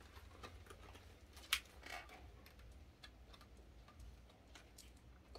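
Faint scattered clicks and light rustles of a small cardboard phone-case box and its paper insert being handled and pulled open, with one sharper click about one and a half seconds in.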